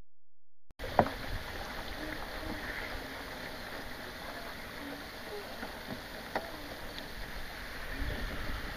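Open-air marsh ambience: a steady, soft wash of water lapping near the surface, with a few faint ticks and one sharp click about a second in. It starts after a brief silence at the very beginning.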